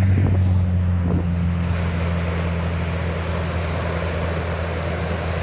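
Wind rumbling on the microphone over ocean surf, heard as a steady low hum under a hiss of waves.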